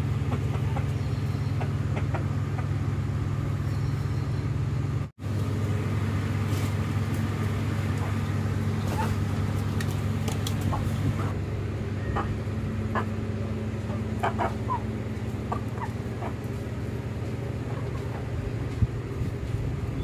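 Steady low mechanical drone with a brief dropout about five seconds in, and faint short clucks from Aseel chickens scattered through the second half.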